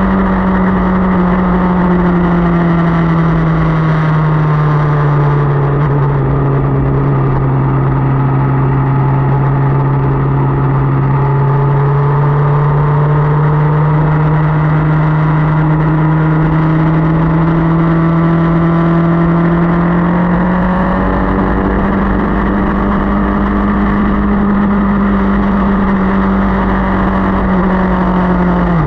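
Motorcycle engine running while riding: its pitch falls over the first few seconds, holds steady, climbs back up about twenty seconds in, and drops sharply right at the end, as the throttle is eased and opened again. A steady rush of wind and road noise runs underneath.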